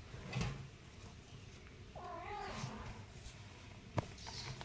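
A kitten mews once, a short wavering cry about two seconds in, with a little scuffling early on and a sharp tap near the end.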